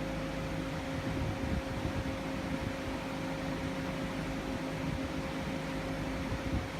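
Steady hum with a constant tone from a powered-up 2003 Daewoo Puma 240LB CNC lathe as it carries out a reference return, its X and Z axes travelling automatically to their home positions.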